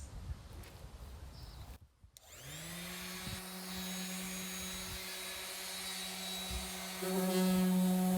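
Electric sander switching on about two seconds in, spinning up quickly to a steady running hum, and getting louder about seven seconds in. It is there to sand the dried repair on the fiberglass.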